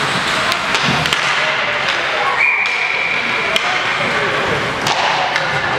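Ice hockey game in an arena: sharp knocks of sticks and puck hitting ice and boards amid crowd voices, with a steady high whistle for about a second and a half in the middle.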